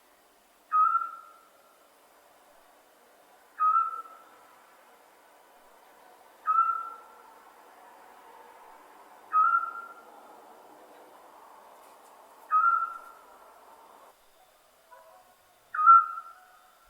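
Scops owl calling: a single short, whistled note repeated six times, about every three seconds, each starting sharply and fading.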